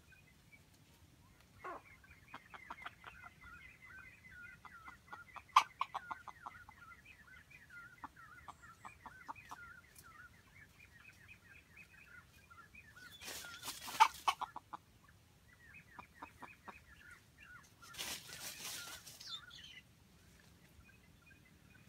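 Wild chicken clucking in long, fast runs of short clucks, then in shorter runs later on. Two short noisy bursts come past the middle and near the end.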